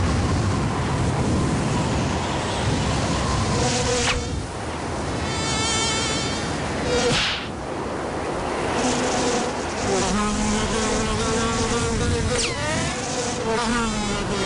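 Cartoon sound effects: a rushing wind noise, then wavering insect-like buzzing. A short whoosh comes about halfway through, and a quick falling whistle comes near the end.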